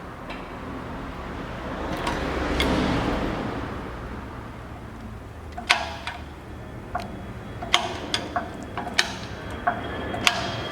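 A swell of hissing noise, then a run of sharp metallic clinks and taps at irregular intervals from a little past halfway, like metal tools striking metal parts.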